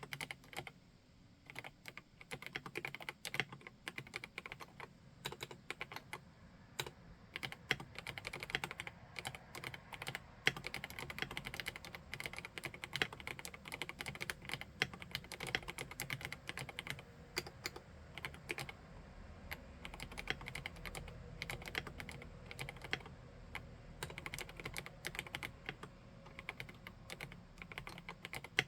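Continuous typing on a PK x BIOI Command 65 custom mechanical keyboard: a fast, dense stream of keystroke clacks, sparser for the first couple of seconds.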